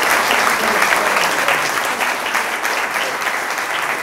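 Audience applauding steadily: many hands clapping at the end of a speech.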